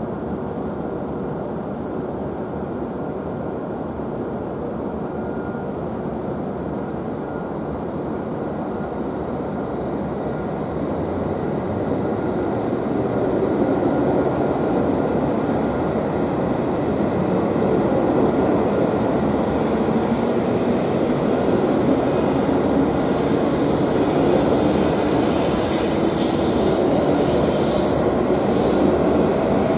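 E7-series Shinkansen pulling out of the platform and gathering speed. The traction motors' whine rises in pitch as it accelerates, and the running noise grows louder from about halfway through, with an airy hiss building near the end.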